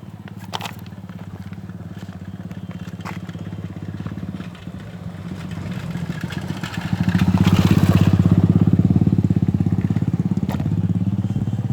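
Motorcycle engine running with a rapid, even firing pulse, growing louder about seven seconds in and then easing off a little.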